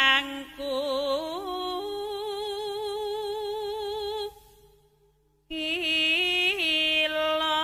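Javanese palaran singing: a single voice holds long notes with a wide, wavering vibrato. It fades out a little past the middle and comes back in after about a second of silence.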